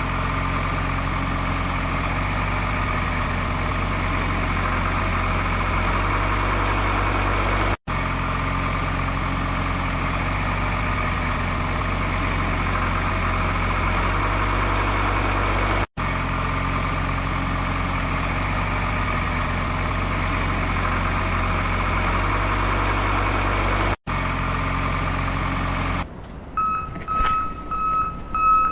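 A steady truck engine idling sound, looped so that it cuts off and restarts abruptly about every eight seconds. Near the end it gives way to a run of short, high electronic beeps.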